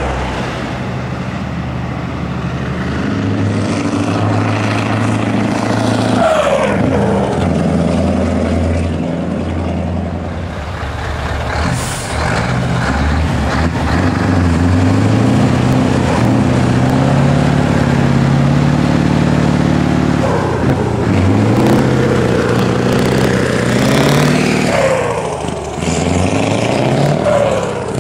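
Scania 144 truck's V8 diesel engine running and revving, its pitch climbing and dropping several times as it pulls away and changes gear. A short hiss of air, as from the air brakes, comes near the middle.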